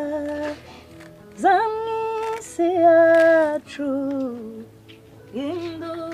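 A woman singing a slow melody in phrases of long held notes, sliding up into some of them, with short breaks between phrases.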